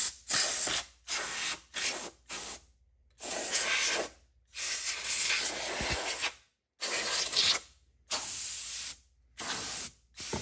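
Compressed air blowing dust out of an open tape deck's chassis, in about ten separate blasts of uneven length. The longest, in the middle, lasts about two seconds.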